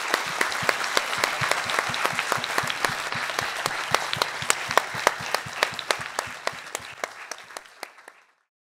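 Audience applauding, with one person's louder, regular claps close to the microphone standing out over it. The applause fades away and cuts off about eight seconds in.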